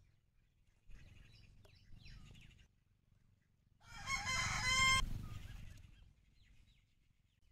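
A rooster crows once, about four seconds in, for about a second, and the crow cuts off abruptly. Fainter low handling noises come before it.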